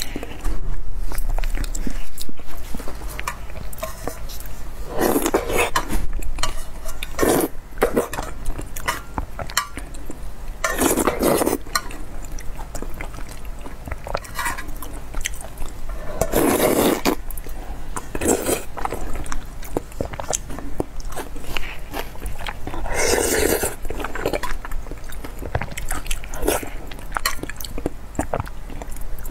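Close-miked eating: a person slurping food and broth out of spicy chili-oil soup and chewing, with about six loud slurps a few seconds apart between quieter chewing.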